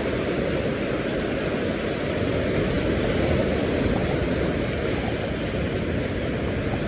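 Steady low rushing noise of wind and surf on an open beach, even throughout with no distinct events.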